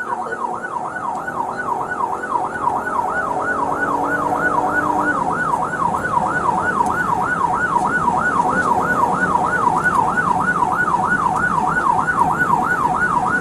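Police car siren in yelp mode: a fast rising-and-falling wail repeating about three times a second, with vehicle noise underneath.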